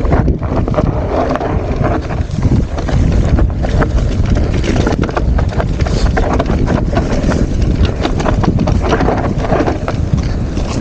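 Mountain bike riding down a rocky singletrack: wind rumbles on the camera microphone over a constant irregular clatter of tyres on stones and the bike rattling.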